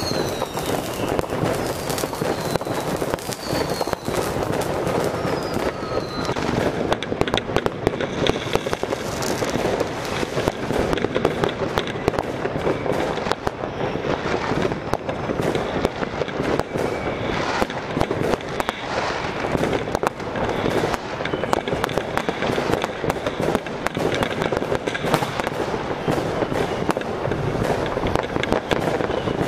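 Ground fountain firework (Weco Outbreak Powertec multi-effect fountain) burning with a continuous rushing hiss and dense crackling. A few short falling whistles sound in the first several seconds.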